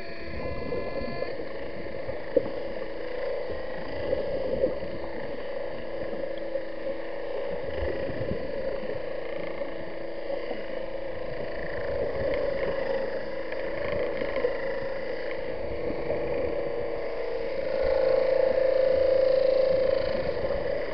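A grinder running steadily with a constant humming tone. It grows louder for about three seconds near the end.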